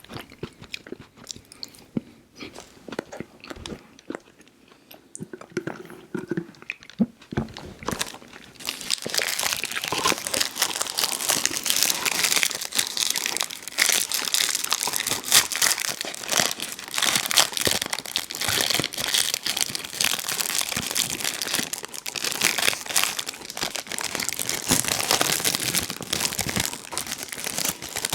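Close-miked eating of Little Debbie Birthday Cakes: soft chewing and mouth clicks, then about a third of the way in a much louder, dense crackling of crunching that runs on.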